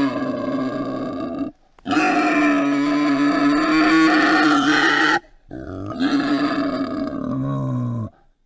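Warthog calling: three long, pitched calls of a few seconds each, separated by short pauses.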